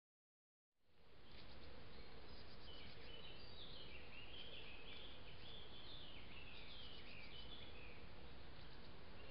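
Songbirds singing short, repeated chirping phrases over the steady hiss of a trail camera's microphone, which cuts in abruptly about a second in.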